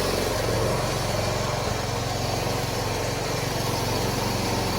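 Wheel Horse 212-5 garden tractor's single-cylinder Kohler engine running steadily, just started after sitting unused for a month.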